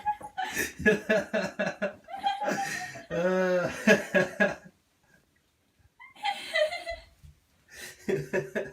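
People laughing in quick rhythmic bursts, falling quiet for a moment past the middle, then breaking into laughter again near the end.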